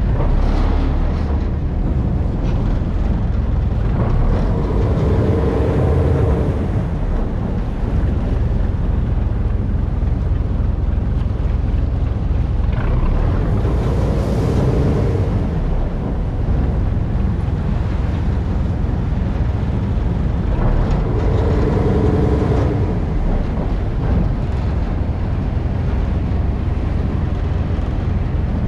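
Boat engine running with a steady low rumble; a higher droning tone swells over it three times, roughly every eight seconds.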